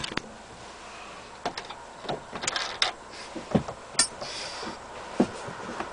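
Scattered knocks and clicks as a camper van's removable table is handled and lifted out of its overhead storage shelf: several sharp, irregular knocks a second or so apart.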